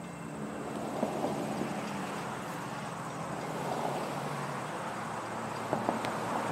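Approaching freight train's diesel locomotives heard at a distance: a low steady rumble that grows slowly louder.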